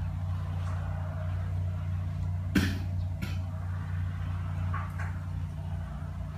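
A steady low mechanical hum, with a sharp knock about two and a half seconds in and a few lighter clinks from hands working food in a metal bowl of water.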